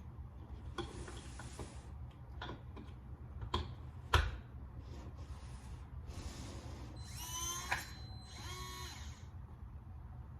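Clicks and rattles of batteries being fitted into a keypad deadbolt, then the lock's small motor whirring twice near the end, each whir rising in pitch, as it drives the bolt out by itself. The bolt is moving so the smart lock can memorise which way the door hangs.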